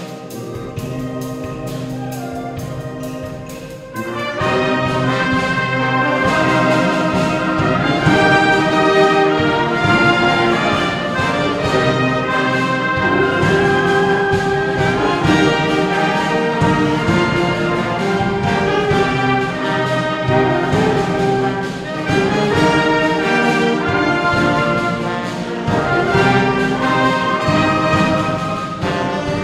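Orchestral background music; a fuller, louder passage comes in about four seconds in.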